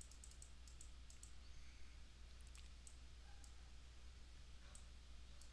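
Faint computer mouse clicks: a quick run in the first second or so, then a few scattered ones, over a low steady hum.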